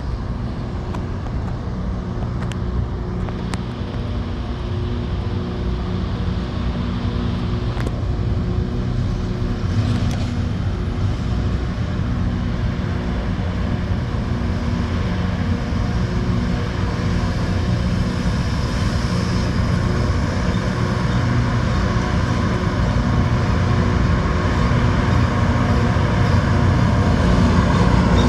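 Rail grinder train's diesel engines running with a steady low drone and a hiss over it, growing gradually louder.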